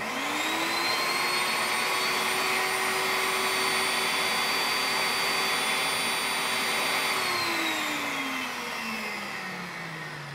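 Food processor motor chopping fresh mint leaves: it starts suddenly, runs at a steady pitch for about seven seconds, then is switched off and winds down with a falling pitch.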